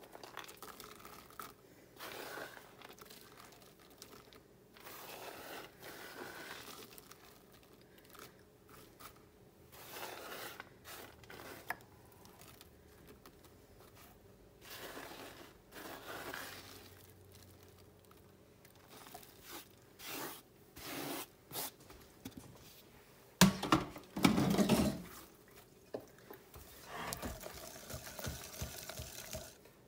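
Chopped pecans scraped off a cutting board and spread by hand over a graham cracker crust in a glass pie dish: a run of short, irregular scrapes and crunchy rustles. About two thirds of the way through comes a sharp knock, the loudest sound.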